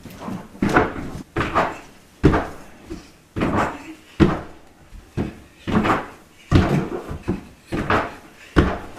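Repeated hollow thumps of feet and body landing and bouncing on an inflatable air track tumbling mat, about two a second and uneven in spacing.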